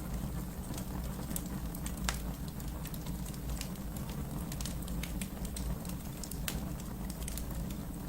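Wood fire burning in a fireplace: a steady low rumble of flames with scattered sharp crackles and pops, a louder pop about two seconds in.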